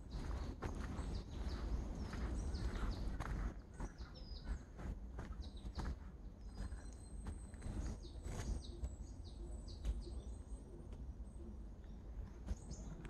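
Footsteps on a mountain trail while hiking downhill, as irregular steps and scuffs, with birds chirping now and then. A low rumble is strongest for the first few seconds, then eases.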